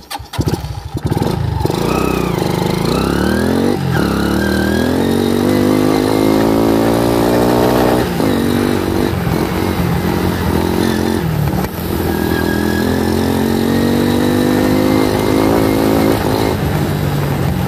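A home-modified dirt bike's engine pulling away and accelerating: its pitch climbs steadily for several seconds, drops briefly about eight seconds in, then climbs again and runs on at speed, easing slightly near the end.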